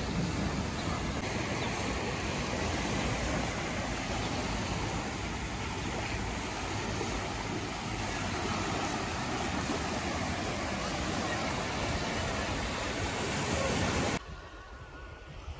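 Small sea waves breaking and washing up a sandy shore, a steady rush of surf that drops off sharply about a second before the end.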